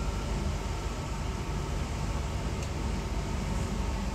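Interior running noise of a Class 323 electric multiple unit on the move: a steady low rumble with hiss and a faint steady whine.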